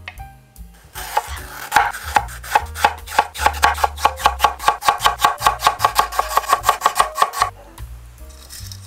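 Chef's knife slicing a Korean melon into thin rounds on a wooden cutting board: a quick, even run of cuts, about six a second, each one knocking on the board, stopping near the end. Background music plays along.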